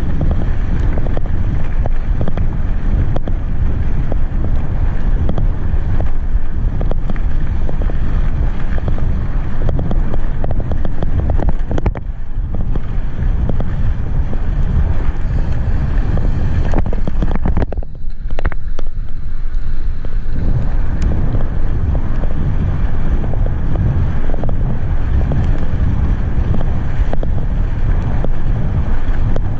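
Wind buffeting the microphone of a camera riding on a moving mountain bike: a steady, loud low rumble that eases briefly about twelve seconds in and again about eighteen seconds in.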